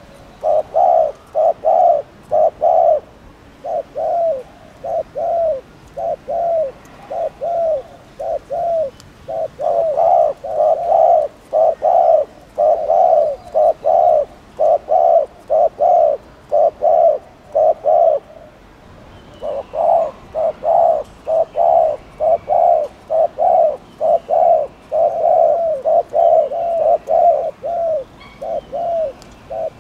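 Spotted dove giving its repeated 'gù' bowing display coo: a long string of short, low hooting notes in quick succession, with a pause of about a second some 18 seconds in. Faint chirps from small birds sound in the background in the second half.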